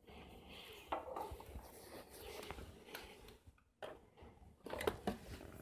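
Faint handling noise from a small plastic USB power adapter turned in the hand and set down on a wooden tabletop, with a few light clicks and knocks.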